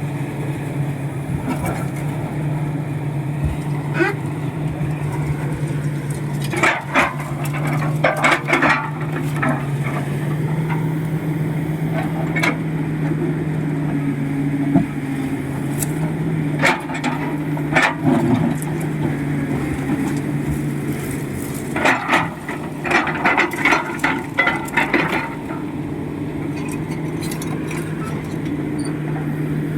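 Komatsu PC71 hydraulic excavator's diesel engine running at a steady speed, with three bursts of sharp knocking and clattering.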